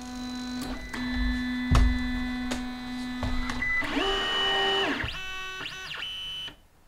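Printrbot 3D printer's stepper motors whining as its axes move: a steady pitched hum for about three and a half seconds, with a few clicks and a low thud about two seconds in, then the print bed driven back and forth, the pitch ramping up, holding and ramping down with each move.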